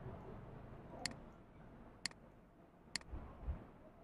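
Faint, sharp clicks about once a second, three in all, from a computer mouse and keyboard being worked at the desk, with a soft low thump near the end.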